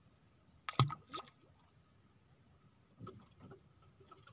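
Handling noise aboard a small outrigger fishing boat: a sharp wet knock a little under a second in, followed by a smaller one, then a few faint clicks near the end, over faint water lapping at the hull.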